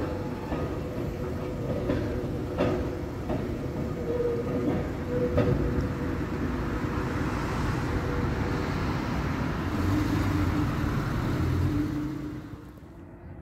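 Lowa ET54 historic tram train running through a track junction: steel wheels on rails with sharp clicks over the points and rail joints, over a steady tone. A deeper hum swells for a couple of seconds, then the sound fades near the end.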